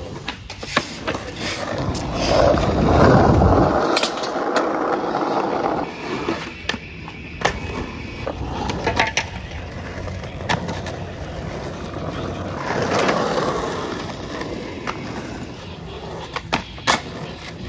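Skateboard wheels rolling over rough asphalt, with a scatter of sharp clacks from boards popping and landing. The rolling noise swells louder a couple of seconds in and again about two-thirds of the way through.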